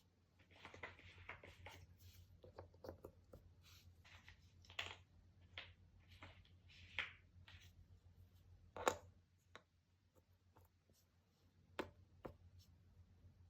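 Faint handling of cardboard jigsaw puzzle pieces: soft sliding and rustling with scattered light taps and clicks as pieces are moved, set down and fitted, with a couple of sharper clicks about two-thirds of the way in and near the end.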